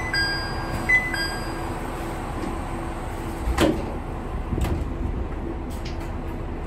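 Diesel railcar's door chime sounding a short two-note tone twice, then the sliding doors closing with a knock about three and a half seconds in, over the railcar's steady hum.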